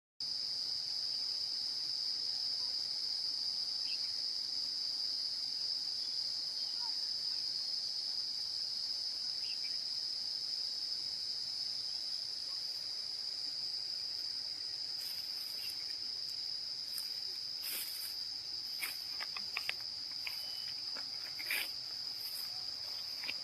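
Insects, crickets by their sound, trilling steadily in one unbroken high-pitched chorus, with a few short clicks or rustles in the second half.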